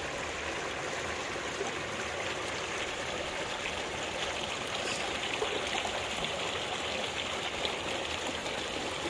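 Shallow creek running steadily over stones and gravel.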